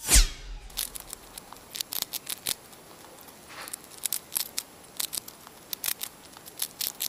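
Logo-intro sound effect: a quick whoosh at the start, then scattered, irregular sharp crackling clicks, glitchy static.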